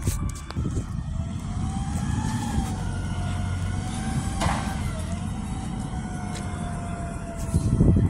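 Natural-gas front-loader garbage truck running: a steady low engine rumble under a thin whine that rises, wavers and then slowly sinks. A sharp knock about halfway through.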